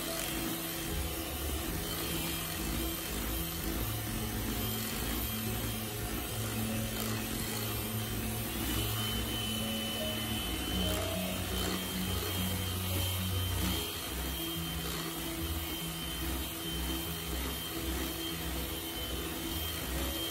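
Panasonic electric hand mixer running steadily, its twin beaters whipping buttercream in a glass bowl, with a high motor whine in the second half. Slow background music plays alongside, its low notes changing every few seconds.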